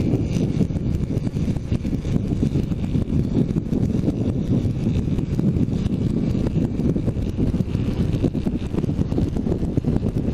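Heavy wind buffeting on a helmet-mounted camera's microphone while riding a motorcycle at road speed, a loud, steady, low rumbling noise that drowns out the engine.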